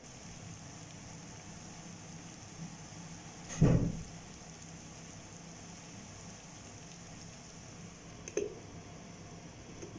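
Sliced onions cooking in a pot with a faint steady hiss and low hum. A loud thump comes about three and a half seconds in, and a lighter knock near the end as the glass lid of the pot is handled.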